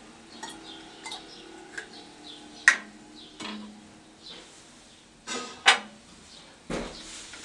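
Glass and plastic bottles clinking and knocking on a counter as they are handled: a series of separate sharp clinks, the loudest about two and a half and five and a half seconds in.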